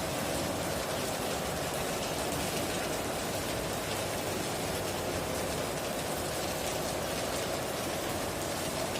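Heavy rain falling steadily on a tin roof, a dense, even patter of drops with no thunder.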